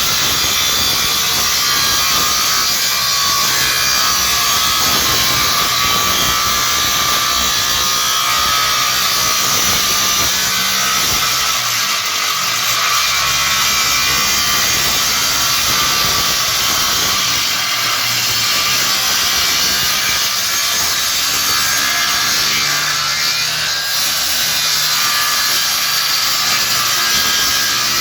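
Power saw cutting through wood, running steadily without a break.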